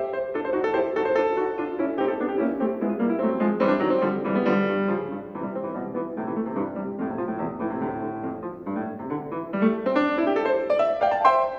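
Solo Steinway grand piano playing a fast classical piece, with a passage climbing in pitch near the end that leads into loud chords.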